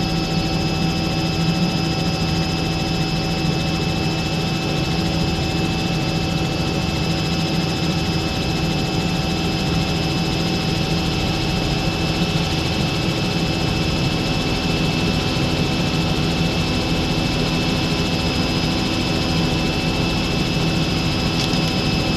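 Robinson R66 turbine helicopter in steady forward flight, heard inside the cockpit: a constant drone of the rotor and Rolls-Royce RR300 turboshaft engine, with several steady high whines laid over it.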